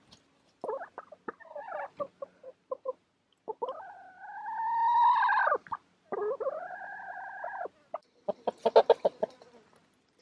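Chickens clucking, with two long drawn-out calls in the middle, the first rising and then cutting off, the loudest sound here. A quick run of clucks follows near the end.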